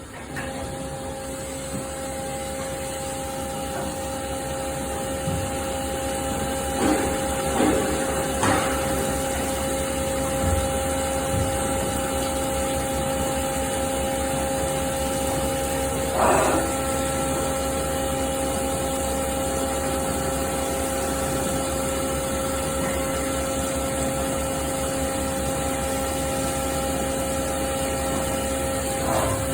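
CNC machining centre running while machining an SS400 steel part: a steady spindle whine of several tones over a hiss. Brief squeals come a few times in the first half, and a higher tone joins a little past halfway.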